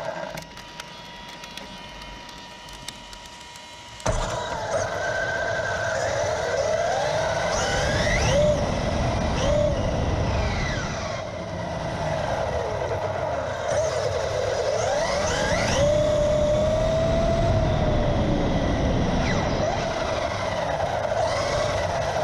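Traxxas UDR RC truck's brushless electric drivetrain whining, its pitch rising and falling with the throttle, over rumbling tyre and wind noise once it gets moving about four seconds in.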